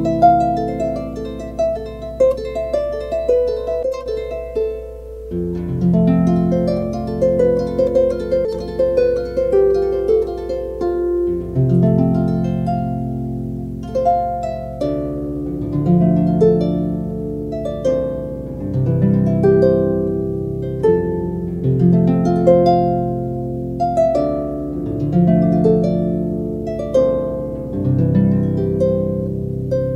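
Harp music: a plucked melody ringing over low bass notes that change about every two seconds.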